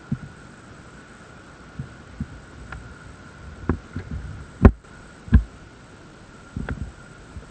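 Seven irregular dull thumps and knocks over a faint steady hum, the loudest a little past halfway.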